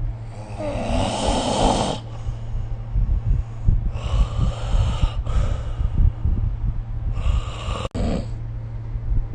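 A sleeping person snoring: three rasping, breathy snores about three seconds apart, over a steady low hum.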